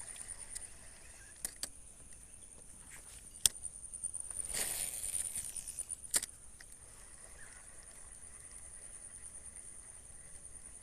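Insect trilling steadily at a high pitch, with a few sharp clicks and a brief hiss about halfway through.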